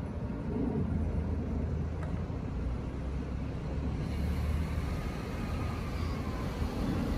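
A 209 series electric train standing at the platform, its onboard equipment giving off a steady low hum.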